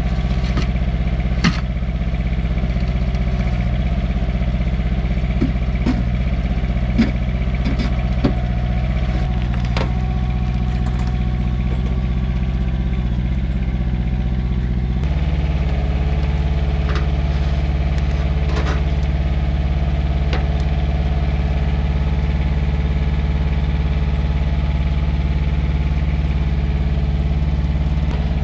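Mini excavator engine running steadily while its bucket drags and lifts steel form beams, with several sharp metal clanks in the first ten seconds. About halfway through, the engine's note changes and then holds steady.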